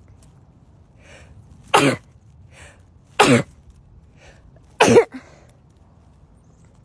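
A person sneezing three times in quick succession, about a second and a half apart, with faint intakes of breath between the sneezes.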